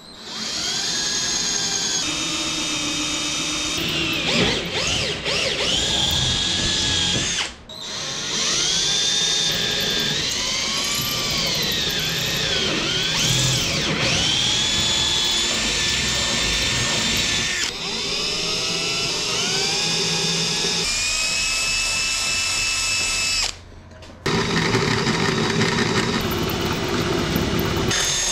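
Cordless drill boring quarter-inch holes through steel strut attachment brackets and aluminium spar cap strips. Its motor whine rises and falls in pitch as the bit loads up, and it stops briefly about eight seconds in and again near the end.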